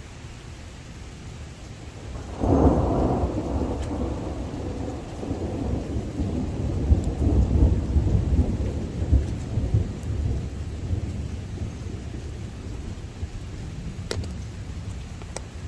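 Thunder: a sudden clap about two and a half seconds in, then a long low rumble that slowly fades away, with steady rain underneath.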